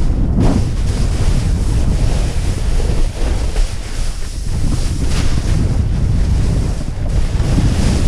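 Wind buffeting a GoPro's microphone as a snowboard rides fast down a steep snow chute, with the board scraping and hissing over the crusty spring snow in surges, the strongest about five seconds in.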